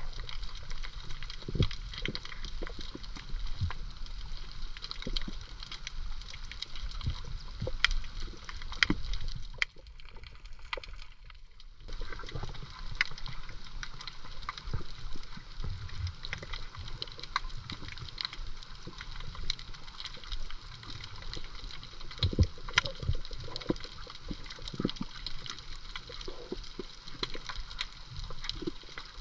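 Underwater sound while snorkelling over a coral reef: water moving and gurgling under a steady crackle of small clicks. It drops quieter for a couple of seconds about ten seconds in.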